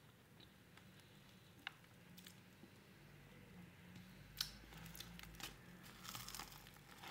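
Mostly quiet chewing of a salami sandwich, with a few soft crinkles of its white paper wrapper. The crinkling picks up near the end as the wrapped sandwich is raised for another bite.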